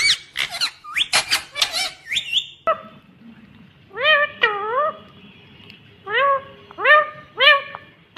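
Rose-ringed (ringneck) parakeet vocalising: short, shrill, arching calls in a quick run over the first couple of seconds, then, after a pause, single and paired calls about half a second to a second apart.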